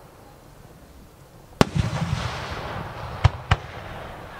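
Aerial fireworks: one loud sharp bang about a second and a half in, with a rolling noisy tail after it, then two more sharp bangs in quick succession a little later.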